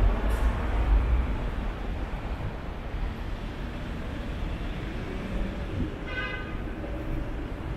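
Urban street ambience with the low rumble of traffic, strongest in the first second, and a short high-pitched tone about six seconds in.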